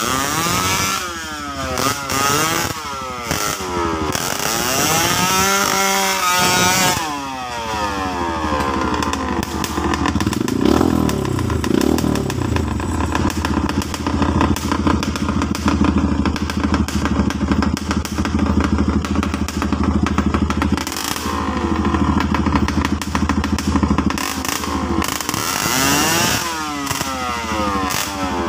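Dirt bike engine revving hard in repeated rising and falling surges for the first several seconds, then running at a steadier drone on a muddy trail climb, with more revving near the end.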